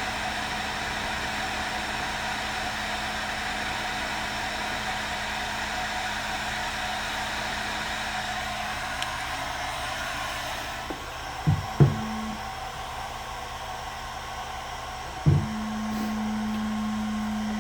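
Electric heat gun running, a steady rush of hot air over a motor hum, shrinking the sleeve of a waterproof crimp terminal. About two-thirds of the way through the air noise drops, a few short knocks follow, and then the gun hums steadily again.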